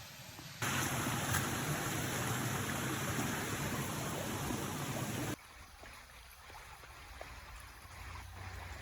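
Loud, steady rushing water, cutting in abruptly about half a second in and cutting off sharply about five seconds in, leaving a much quieter outdoor background with a few faint clicks.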